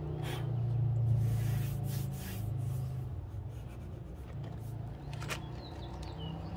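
A hand rubbing and brushing over the sanded plastic kayak hull, feeling its surface, in a few soft brief rubs. A low steady rumble runs underneath.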